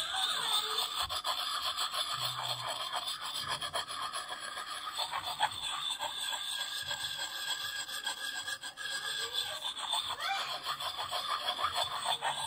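Fine side of a Lansky Puck sharpening stone rubbed in quick, repeated strokes along the steel edge of an old hatchet: a steady scraping of stone on steel.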